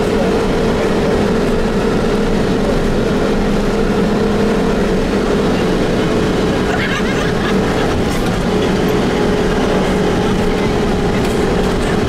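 Vehicle engine running with a steady hum, mixed with tyre and road noise on a dirt road, heard from inside the moving vehicle.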